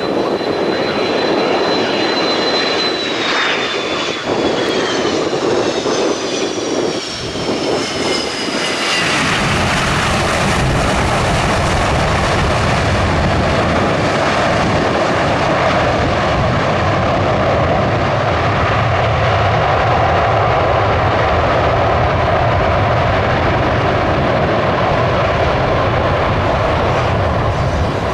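Delta MD-88 jet engines (rear-mounted Pratt & Whitney JT8D-200 series turbofans): a high whine that falls in pitch a few seconds in, then about nine seconds in a deep, steady engine rumble takes over and holds at a high level.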